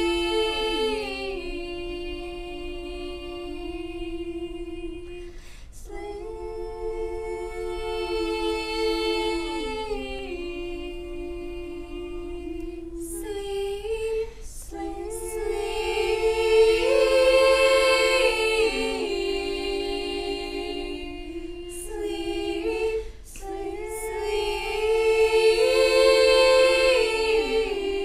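A student choir singing a cappella: long, slow phrases of held notes in several-part harmony, with brief pauses for breath between phrases.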